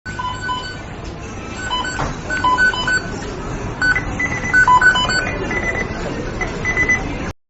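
McDonald's kitchen beeping: the timers and alarms of the kitchen equipment beep in short, overlapping tones at several different pitches, some in quick pairs. Higher beeps join in during the second half, over a steady noisy kitchen background. The sound starts abruptly and cuts off suddenly near the end.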